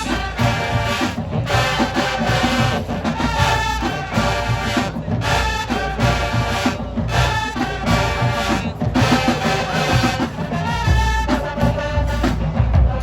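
A high school marching band playing loud brass-led music with drums, with short breaks between phrases.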